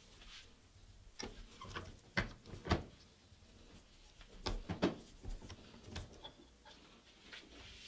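Brass tube clicking and tapping lightly against the steel jaws of a bench vise as it is handled, an uneven string of small knocks with the strongest ones about two and a half and five seconds in.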